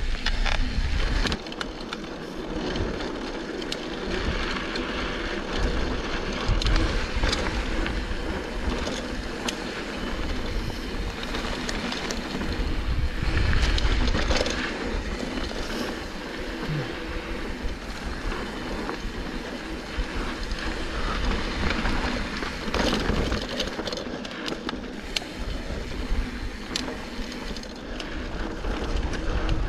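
Mountain bike riding fast down a dry dirt singletrack: a steady rush of tyre and wind noise with a deep rumble, and scattered clicks and rattles from the bike.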